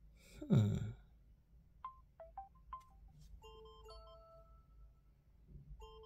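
ZTE Axon 40 Ultra phone ringtone playing. It opens with a brief low falling whoosh, then a few short chime notes. From about three and a half seconds a bell-like chime melody plays, starting over about two and a half seconds later.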